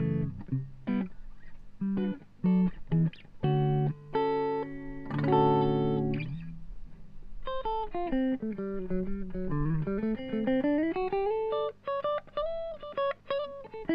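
Electric guitar played through a JetCity JCA20H tube amp head and Bugera 212V 2x12 speaker cabinet. It starts with short chords and notes. About halfway in comes a single-note melodic line with slides and wavering bends, then short notes again.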